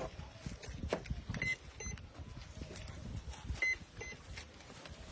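Short high electronic beeps, coming twice as a pair of quick beeps about two seconds apart, over low handling and rustling noise.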